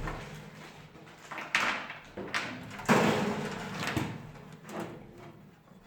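Three sharp clunks as an electric oven is handled and set up for a test, the loudest about three seconds in.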